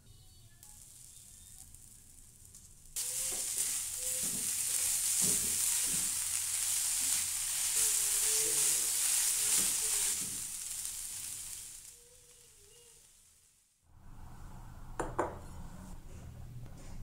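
Grated coconut and palm sugar sizzling in a non-stick frying pan, stirred with a silicone spatula that scrapes the pan in repeated strokes. The sizzle starts abruptly and fades away. A light clink comes near the end.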